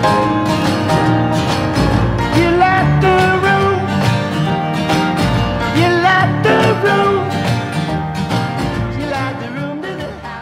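Background music with plucked guitar and a melodic lead line, in a country style, fading down near the end.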